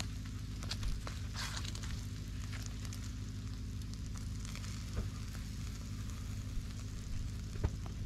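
Meat in wire grill baskets sizzling over hot charcoal embers, with scattered crackles and pops from the coals, over a steady low rumble.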